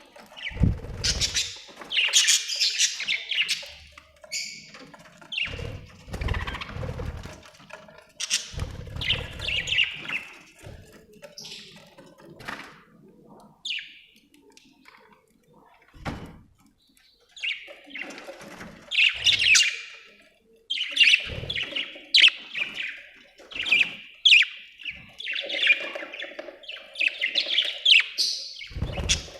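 Budgies chirping and warbling in quick bursts, quieter for a few seconds in the middle, with a few low thumps among the calls.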